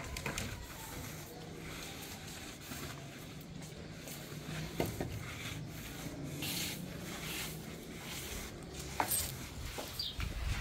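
Wet floor cloth on a mop stick being pushed across wet floor tiles: soft, uneven swishing strokes, with a few light knocks.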